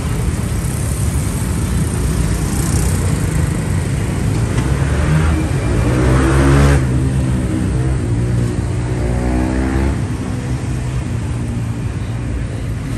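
Street traffic: motor vehicle engines running close by. One engine climbs in pitch and gets louder about halfway through, and another rises a few seconds later.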